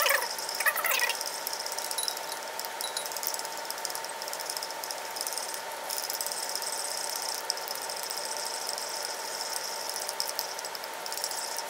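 A glass beaker squeaks briefly against glass twice in the first second as the small beaker is lifted out of the larger water-bath beaker. Under it runs a steady hiss with a faint constant tone.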